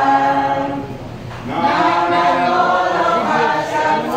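A group of mourners singing a hymn together. A held note fades about a second in, followed by a short pause and the next line.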